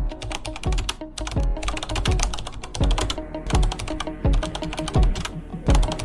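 Background music with a steady kick-drum beat, one thump about every 0.7 seconds, under rapid clicking percussion and a sustained melody.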